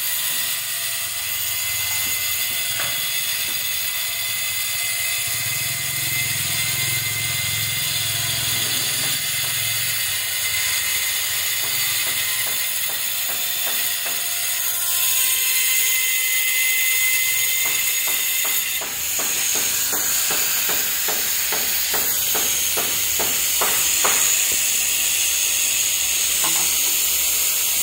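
Handheld angle grinder cutting a ceramic floor tile: a steady high whine with hiss. About two-thirds through, the sound changes and a run of quick taps follows.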